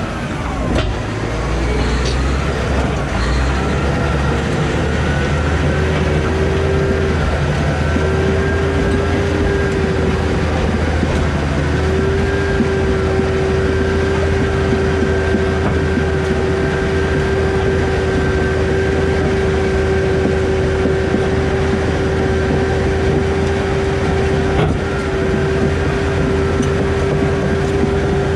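Komatsu D155AX bulldozer running, its diesel engine making a steady low hum under a steady whine that holds one pitch.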